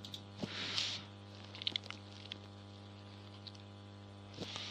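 A few faint computer keyboard and mouse clicks over a steady low electrical hum, with a soft breathy hiss about a second in.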